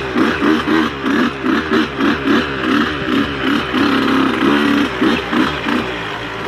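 Dirt bike engine running while being ridden, its revs rising and falling repeatedly with the throttle.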